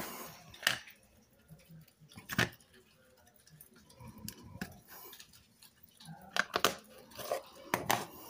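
A few light taps and clicks, scattered and well apart, from a clear acrylic stamp block and an ink pad being handled as a congratulations stamp is inked.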